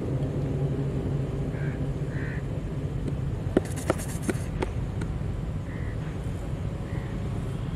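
Steady low hum of a distant engine, with a few sharp clicks about three and a half to four and a half seconds in and faint short chirps.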